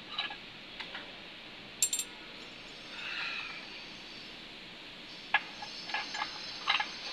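Scattered light metallic clinks and taps from a hoist chain and engine parts being handled. A sharper ringing clink comes about two seconds in, and a small cluster of clinks comes in the last two seconds.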